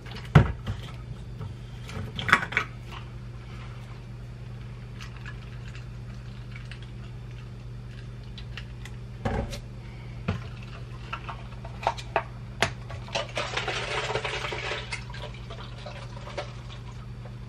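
Cold brew coffee poured from a plastic bottle into a plastic cup, the pour running for about two seconds, amid scattered clicks and knocks of the bottle and cup being handled at the kitchen counter. A steady low hum runs underneath.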